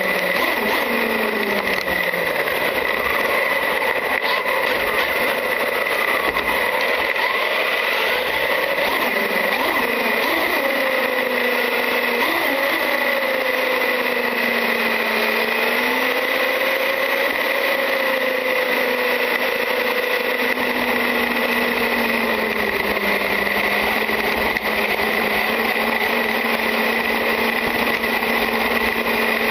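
Traxxas UDR RC truck driving, heard from its own onboard camera: the electric motor and drivetrain whine slides up and down in pitch as the truck speeds up and slows, over a steady rush of tyre and wind noise. A steady high-pitched tone runs underneath.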